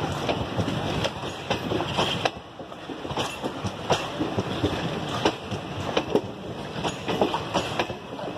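Indian Railways passenger coaches rolling past close by at speed: a steady rumble of steel wheels on rail, broken by repeated sharp clicks as the wheels cross rail joints.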